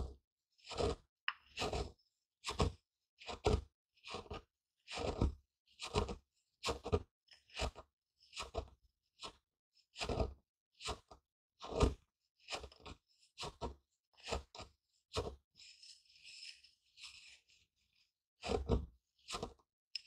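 Pestle crushing and grinding grains in a mortar: a steady run of crunching strokes, a bit over one a second. About three-quarters of the way through the strokes stop briefly for a softer, higher scraping, then start again.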